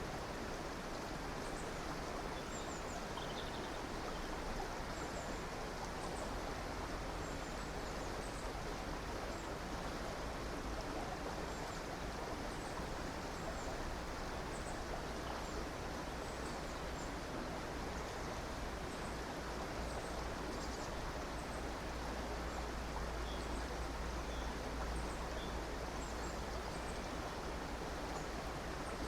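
A river or stream running steadily, with a low rumble underneath and many short, faint, high-pitched chirps of small birds scattered throughout.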